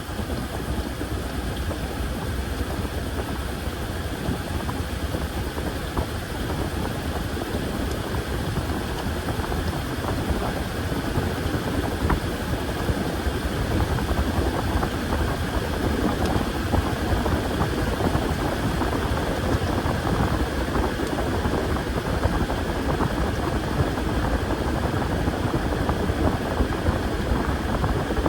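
Washing machine running through its cycle: a steady mechanical hum and churn, getting a little louder about ten to fourteen seconds in.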